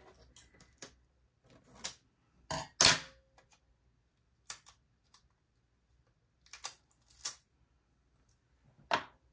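Scissors cutting pieces of tape: a scattering of short snips and clicks, the loudest about three seconds in.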